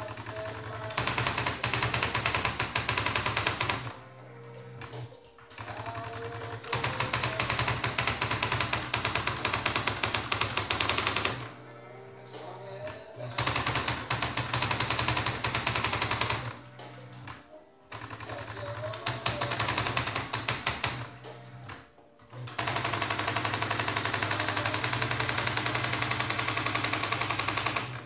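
A 1986 electronic typewriter, driven by an Arduino, typing whole lines in fast runs of key strikes. There are five runs of a few seconds each. In the short pauses between runs the carriage moves and a brief rising motor whine is heard.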